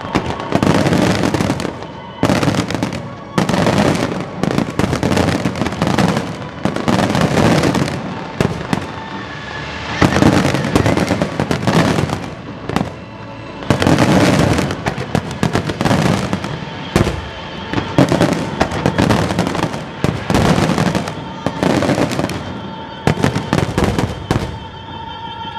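Aerial fireworks display: a continuous barrage of bursts in quick succession, several a second, with no pause.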